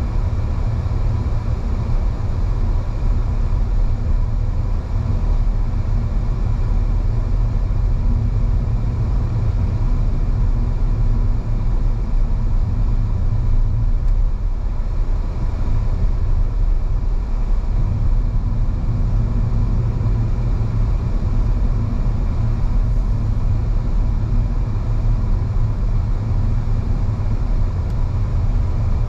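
Steady low rumble of a car being driven: engine and tyre noise at an even level.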